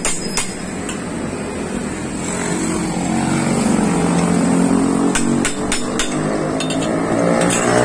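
Hammer strikes on metal at the motorcycle's steering stem as the steering head bearing is knocked into place, a few sharp blows at the start and another run of them about five to six seconds in. From about a second in, a motorcycle engine runs underneath, its pitch rising and falling.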